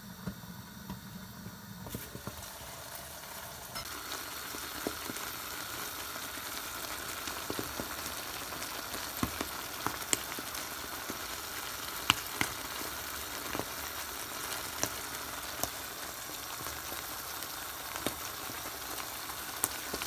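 A thick tomato-based goat stew (kaldereta) simmering in a pan, giving a steady sizzle with scattered small pops and spits from the bubbling sauce. It grows a little louder over the first few seconds.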